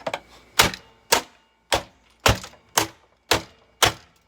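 Eight hard blows in a steady rhythm, about two a second, struck on the body of a Eureka The Boss bagged vacuum cleaner as it is smashed apart.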